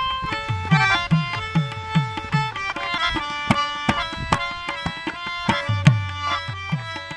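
Harmonium playing a melody of held notes over a hand drum's rhythm. Sharp drum strokes run throughout, and low bass strokes slide down in pitch, in a run about a second in and again near the end.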